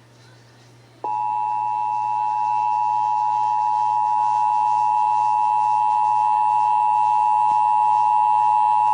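Emergency Alert System two-tone attention signal (853 and 960 Hz sounded together), a steady, unwavering dual tone that begins about a second in after a brief quiet and holds for about eight seconds; it is the alert tone that announces the spoken test message.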